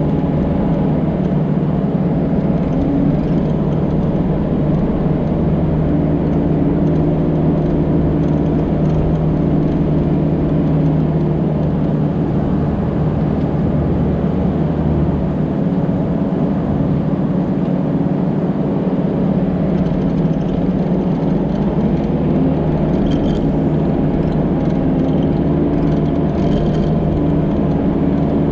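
Diesel engine of an earthmoving machine running steadily under work, its pitch shifting a few times as the load changes.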